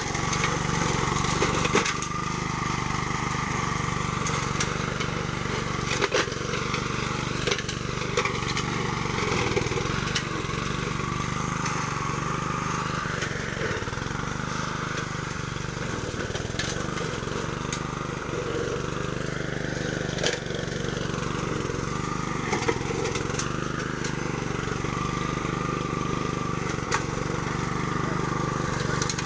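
Honda self-propelled lawn mower's petrol engine running steadily, with occasional sharp clicks over the hum.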